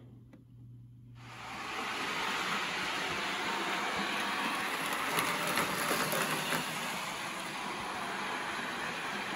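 Model Aerotrain, driven by a CD-drive motor in a Kato truck, running on layout track: a steady rolling whir of its wheels and motor that starts about a second in, with a few faint clicks from the rails.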